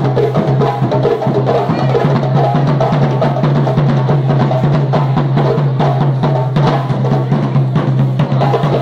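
Samba-style percussion on hand drums, a fast, dense rhythm of strikes with a steady low tone underneath.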